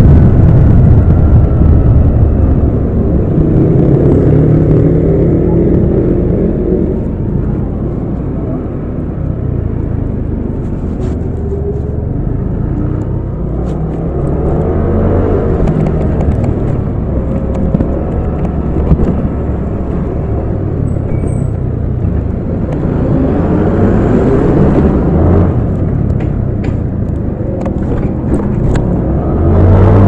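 Yamaha Aerox 155 scooter's single-cylinder engine running under way, rising in pitch as it speeds up and easing off several times.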